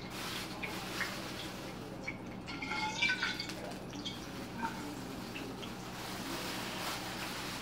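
Plastic bag rustling and crinkling as it is handled, with scattered small clicks and taps and a brief cluster of squeaky crinkles about three seconds in, over a faint steady hum.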